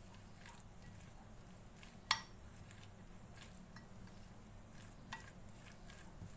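A utensil stirring a thick shredded-chicken and mayonnaise filling in a bowl: faint soft scrapes and ticks, with a sharp clink against the bowl about two seconds in and a smaller one about five seconds in.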